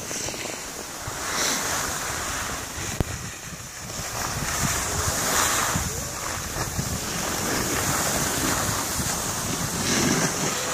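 Skis sliding and scraping over packed snow, a steady hiss that swells and fades, mixed with wind rumbling on the microphone of a camera skiing along behind.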